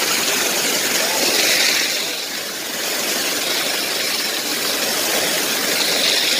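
Heavy water jet from an overhead massage-pool spout pouring into the pool close by, a steady rushing splash.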